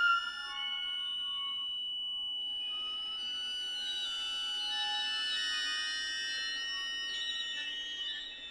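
Quiet passage of contemporary chamber music for flutes, violin, viola and accordion: one thin, high tone is held steady throughout. Other soft high sustained notes join it from about two to three seconds in.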